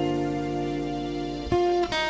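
Instrumental introduction of a song: held chords, with a new chord struck about one and a half seconds in.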